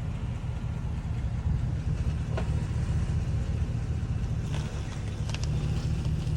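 Car rolling along with a steady low rumble of road and running noise, with a few faint short ticks; no clear brake squeal is heard.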